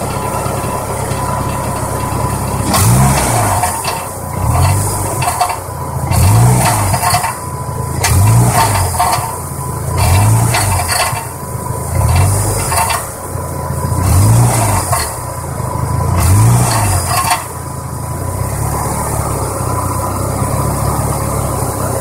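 Car engine idling, then revved and let fall back about eight times, with a metallic rattle from the exhaust as each rev drops, like a bolt rattling inside a pipe: the catalytic converter's insides have come loose and broken up. It settles back to idle for the last few seconds.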